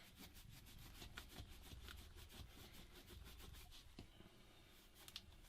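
Faint, repeated rubbing strokes of a cloth rag scrubbing leftover screen adhesive off a phone's body.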